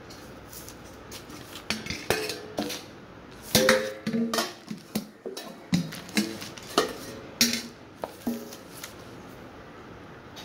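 Stainless steel bowls knocked and clinked, several strikes ringing briefly; about a dozen sharp knocks come from about two seconds in until near the end.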